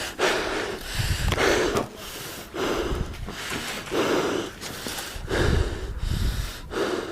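A person breathing hard and heavily, about one loud breath a second, with low rumbles on the microphone between some breaths.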